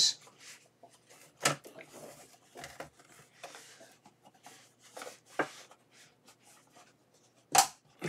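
Plastic snap clips of a Lenovo Ideapad 330's bottom cover clicking as they are unclipped by hand, with faint handling rustle between. There are several sharp clicks, and the loudest comes near the end as the cover comes free.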